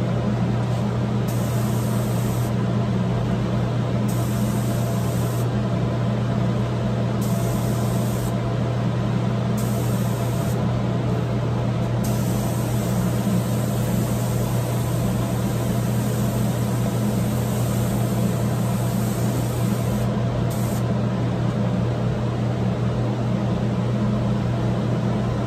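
Gravity-feed air spray gun hissing in bursts as the trigger is pulled, laying waterborne wood stain onto a cabinet door in a single pass: several short bursts, then one long spray of about eight seconds. Under it, the loudest sound is a steady low hum from the spray booth's fan.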